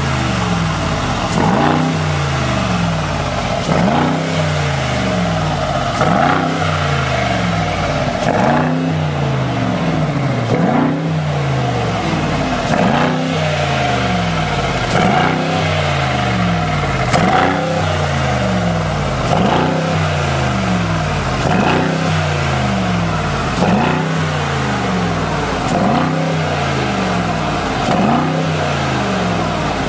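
Mercedes-AMG G63's twin-turbo V8 blipped repeatedly at standstill through an aftermarket Fi Exhaust valvetronic catback, one rev about every two seconds. Each rev climbs quickly in pitch and then falls back toward idle in steps.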